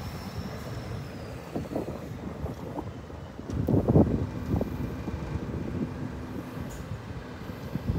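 Scania 124 G hooklift truck's diesel engine running as the truck drives away, a low rumble, with wind buffeting the microphone in gusts, loudest about four seconds in.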